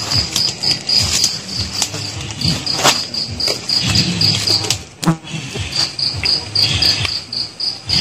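Night insect chirping in a steady high-pitched pulse, about four chirps a second, stopping briefly twice. A few sharp knocks and rustles from movement in the undergrowth come through it.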